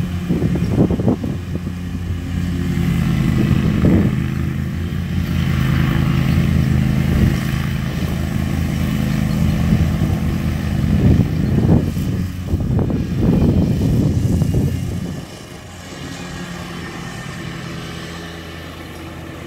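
Engine of a zero-turn riding lawn mower running steadily under load as it cuts grass, with irregular low rumbles; it gets noticeably quieter about fifteen seconds in.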